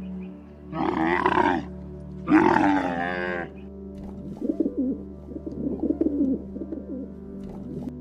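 A camel gives two long, low calls of about a second each, then pigeons coo softly through the second half. Steady background music plays underneath.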